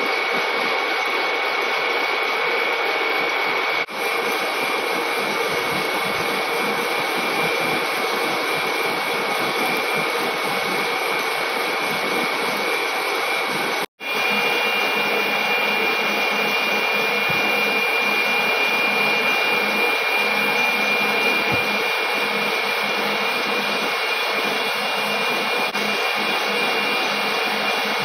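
Large lathe cutting across the face of a heavy forged metal disc: a steady cutting hiss with a high, even whine. The sound dips briefly about four seconds in and cuts out for an instant about halfway, after which the whine comes back a little higher.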